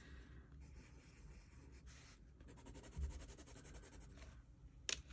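Graphite aquarelle pencil scratching faintly on sketchbook paper as a line and a wiggle are drawn. About halfway through comes a run of quick back-and-forth hatching strokes. A single sharp tap comes near the end.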